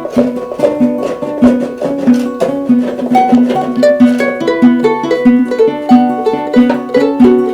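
Plucked string instruments playing a lively tune: a steady strummed rhythm with a picked melody over it.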